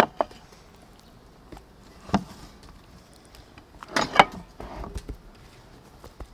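Hands dredging raw beef slices in flour in a metal tray: a few sharp knocks and clinks of the tray, at the start, about two seconds in and in a quick cluster about four seconds in, with soft pats and rustles of flour between.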